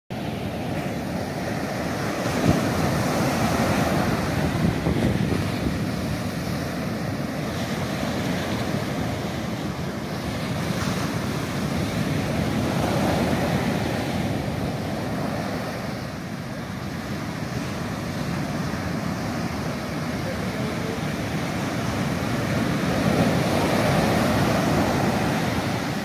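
Rough sea surf breaking on a sandy beach: a continuous wash of foaming waves that swells louder as bigger breakers come in, about every ten seconds.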